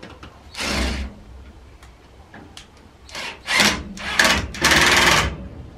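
Tool work on a wooden screen door as it is fitted to swing freely: one short burst of noise about half a second in, then four louder bursts close together in the second half.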